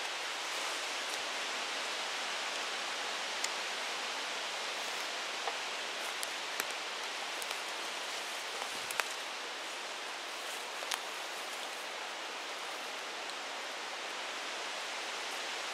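Steady outdoor hiss with a few faint, scattered clicks and rustles from handling leaf litter and twigs on the forest floor.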